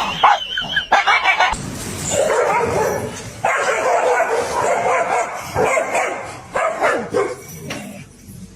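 A dog barking and yipping: a few short sharp barks, then a long dense stretch of continuous yapping that fades near the end.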